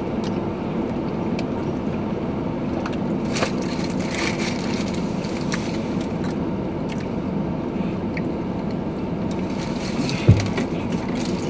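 Steady hum inside a car cabin with the engine idling, with scattered faint sips and rustles from drinking milkshakes through straws, and a single low thump about ten seconds in.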